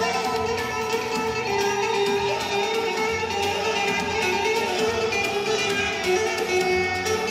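Instrumental passage of Turkish folk music, a plucked string instrument carrying the melody with sustained notes and no singing.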